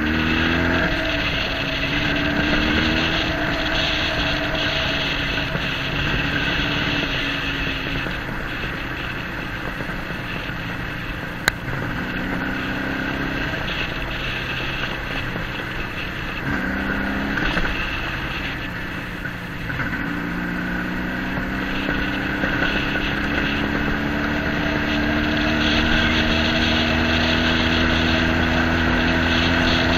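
A vehicle engine running under way, its pitch rising and dropping several times and then climbing slowly through the second half, with wind noise on the microphone. There is one sharp click about eleven seconds in.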